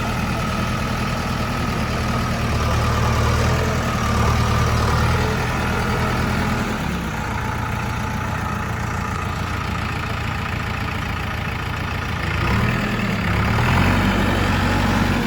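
Heavy diesel engine of a backhoe loader or truck idling steadily; near the end its note wavers up and down a few times.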